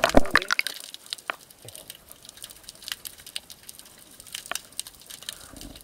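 Underwater sound picked up by a submerged camera: scattered sharp clicks and crackles over a faint hiss, with a few louder knocks in the first half second.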